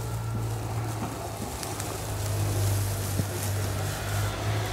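A motor running steadily with a low, even hum, under faint outdoor wind noise.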